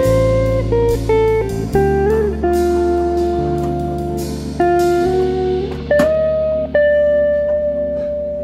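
Background music led by a plucked guitar over a bass line. A note slides up about six seconds in, is held, and fades toward the end.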